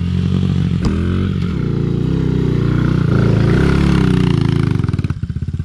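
Honda XR50 pit bike fitted with an 88cc big bore kit, its small single-cylinder four-stroke engine revving under load as it climbs a dirt hill in second gear. About five seconds in, the engine drops back to a slow, pulsing idle.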